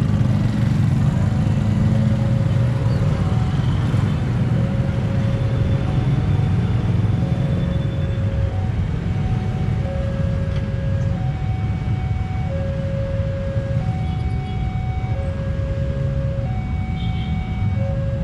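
Railway level-crossing warning alarm sounding: an electronic two-note signal alternating a low and a high note, repeating about every two and a half seconds, warning of an approaching train. Under it is a steady low rumble of vehicle engines waiting at the crossing.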